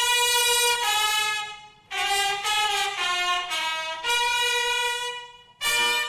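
A solo wind instrument with a trumpet-like tone plays long held notes, in three phrases separated by brief pauses.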